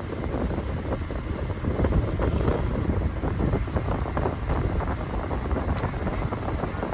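Wind buffeting the microphone over the road rumble of a moving car, a steady noisy rush with small crackles and no horn.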